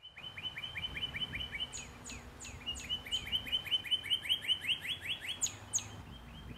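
Birds chirping: one bird repeats a quick series of short chirps, about five or six a second, with a short break partway through, while higher, falling calls from other birds sound over it.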